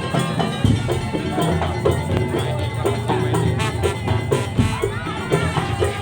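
Madurese tong-tong ensemble playing an instrumental langgam: struck percussion in a busy, steady rhythm under a pitched melody line.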